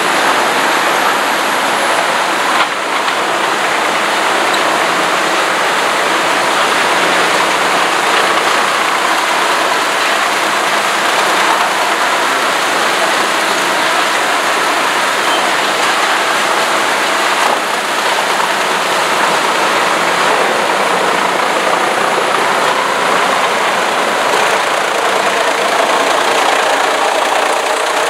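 Heizohack truck-mounted wood chipper running under load, chipping logs fed in by its crane and blowing the wood chips out through its discharge spout: a steady, loud rushing noise.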